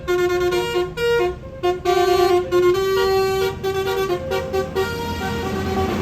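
Bus telolet air horn, a Basuri multi-tone horn, playing a quick melody of short horn notes that jump in pitch several times a second, with a brief break about a second and a half in.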